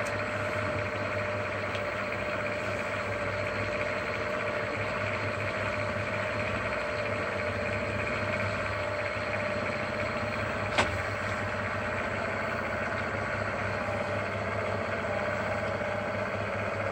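Benchtop mill-drill running steadily with its spindle turning, a constant motor hum with a steady whine, and one sharp click about eleven seconds in.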